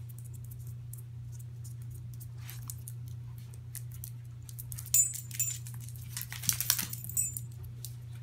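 Small metal dog tags on a harness jingling in short bursts as the dog moves, about five seconds in and again a second or two later, over a steady low hum.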